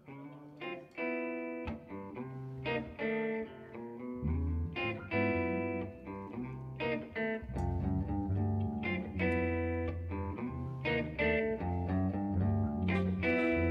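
Background music: a plucked guitar playing a run of separate notes, with low bass notes joining about four seconds in.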